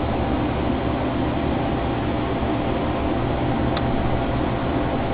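Steady static hiss from a Uniden PC78 CB radio's receiver on the antenna, with a faint tick about four seconds in.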